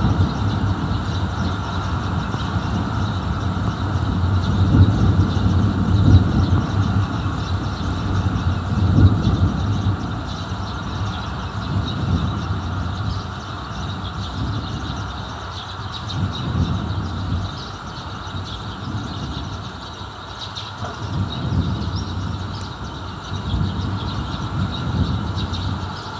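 Distant thunder rumbling in long rolling swells, loudest in the first ten seconds and building again a few times later, over a steady hiss.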